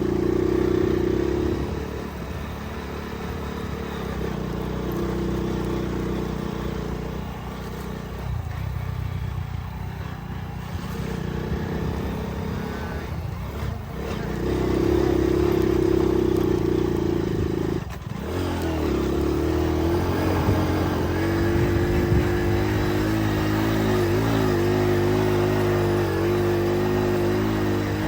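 Small Hero motorcycle's engine running as it is ridden, its note rising and falling with the throttle, dipping briefly about two-thirds of the way through before settling into a steady note.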